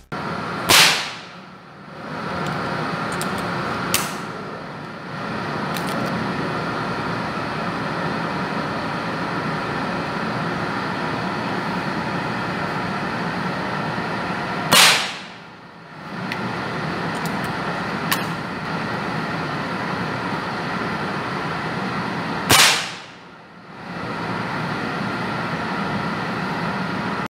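Three shots from a .177 air rifle firing domed pellets through a chronograph, the second about 14 seconds after the first and the third about 8 seconds later. Each pellet clocks about 207 m/s, roughly 11.5 joules. Two lighter clicks come between the shots, over a steady background noise.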